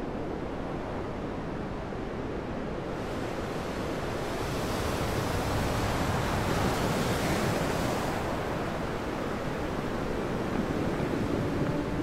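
Ocean waves washing in a steady rush of surf, swelling louder and hissier in the middle before easing back.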